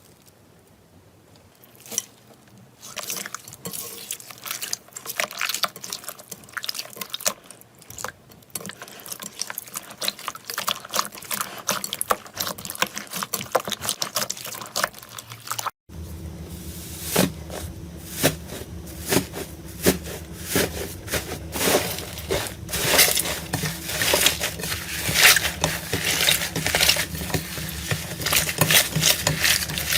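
Slime being squished and worked by hand, making dense, irregular wet clicks and pops. About halfway through the clip changes, and a steady low hum sits under louder, denser squishing.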